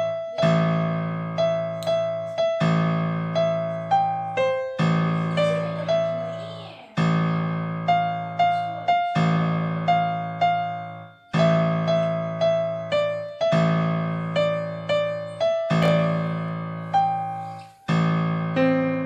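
Background music: a gentle piano melody over held chords, notes struck about once a second and fading between.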